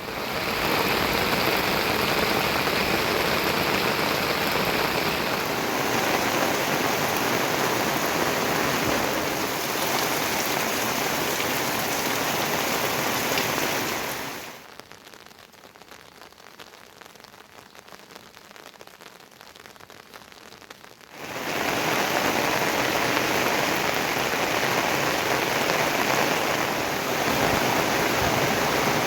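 Heavy rain falling in a steady, loud hiss. About halfway through it drops to a much quieter patter for several seconds, then comes back just as loud.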